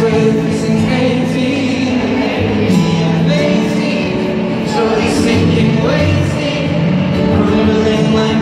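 Live pop ballad in a stadium: a male voice singing over acoustic guitar through the PA, heard from high in the stands with the open-air echo of the venue.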